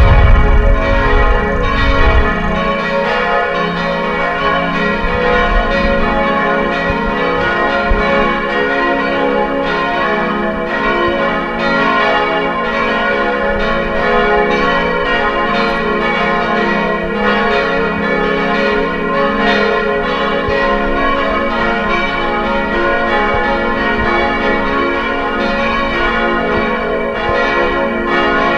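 Church bells ringing: several bells peal together continuously, with overlapping ringing tones and frequent fresh strikes. A low rumble underlies the first two seconds.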